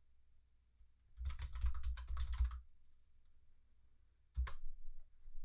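Typing on a computer keyboard: a quick run of keystrokes lasting about a second and a half, then a single sharp click near the end.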